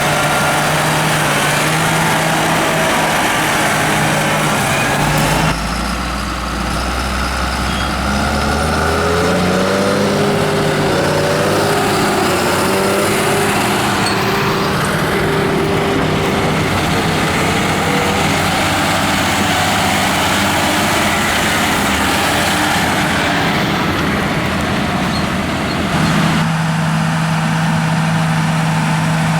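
Diesel engines of large John Deere tractors working under ploughing load, a steady engine drone. The sound changes abruptly about five seconds in and again near the end, and the engine note wavers up and down about a third of the way through.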